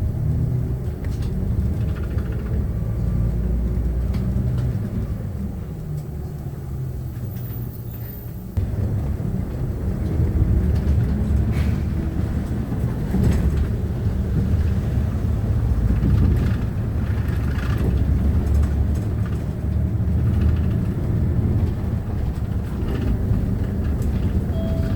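Hyundai New Super Aerocity CNG city bus running, heard from inside the passenger cabin: a steady low engine and road rumble that grows louder about eight seconds in.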